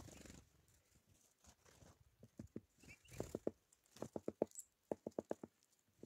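Birds pecking at seed on a wooden tray feeder: a run of sharp taps on the wood, coming quicker in the second half, after a brief flutter of wings at the start and a short high chirp.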